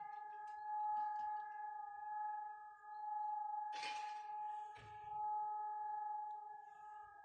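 Air raid siren holding one steady high tone, its loudness swelling and fading about every two seconds. A brief rush of noise cuts across it about four seconds in.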